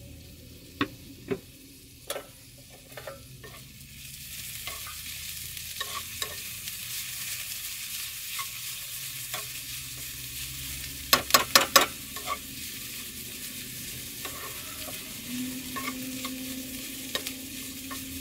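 Diced carrots and red onions sizzling in a frying pan, the sizzle growing louder about four seconds in, while a spatula stirs them and scrapes and knocks against the pan. A quick run of sharp knocks about eleven seconds in is the loudest sound.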